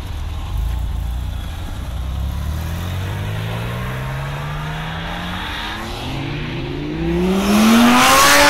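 A Porsche 911 Turbo accelerates away, its engine note rising in one long climb and fading. Then a Lamborghini Gallardo Spyder's V10 revs up hard as it drives close by, rising steeply in pitch and getting loud near the end.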